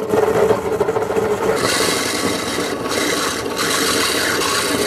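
Power drill turning a hole saw up through the van floor's tar-like sound-deadening mat from underneath: a steady grinding, rasping whir that turns harsher about one and a half seconds in as the saw bites.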